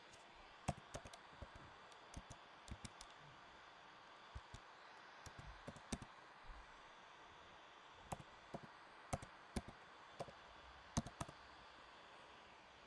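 Keystrokes on a computer keyboard: several short bursts of typing, each a word entered, with pauses between.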